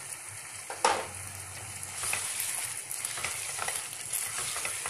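Mutton and ginger-garlic paste sizzling in hot oil in a pot while being stirred with a silicone spatula, a steady crackling sizzle. A sharp knock about a second in is the loudest moment.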